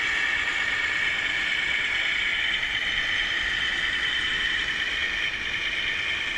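Radio-controlled model construction machines running: a steady, high electric-motor and gearbox whine.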